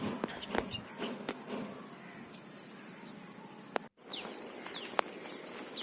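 Outdoor insect drone made of two steady high-pitched tones, with scattered faint clicks and a few short chirps falling in pitch in the second half.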